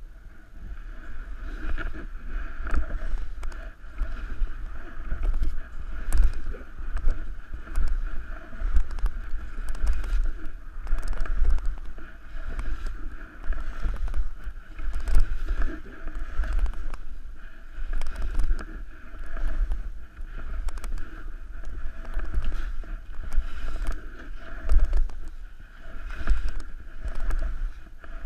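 Skis scraping and chattering over chopped-up snow in uneven surges, with wind buffeting a GoPro's microphone in a low rumble, heard muffled through the camera.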